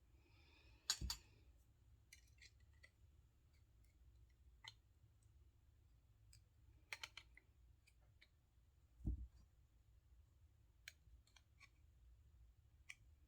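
Quiet, scattered clicks and taps of small metal doorknob parts being handled, with a dull thump about nine seconds in.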